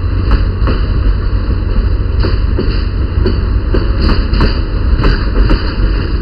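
Locomotive-hauled passenger coaches rolling slowly past on the track: a steady low rumble with irregular clacks of wheels over rail joints, a few a second.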